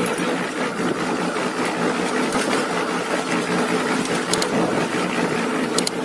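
A machine running steadily, with a few sharp clicks.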